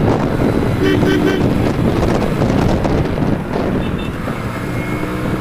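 Wind buffeting the microphone over the engine and road noise of a motorcycle riding at speed in highway traffic. A short run of quick beeps comes about a second in.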